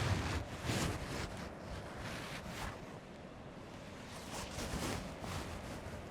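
Wind gusting in swells, buffeting the microphone with a low rumble, strongest in the first second or so and easing off in the middle.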